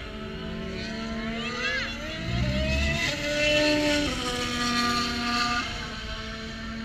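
Race car engines running on the circuit, one car's engine note rising in pitch as it accelerates and grows louder, then stepping down in pitch about four seconds in.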